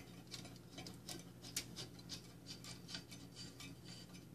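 Faint, irregular light ticks and clicks of handling, several a second.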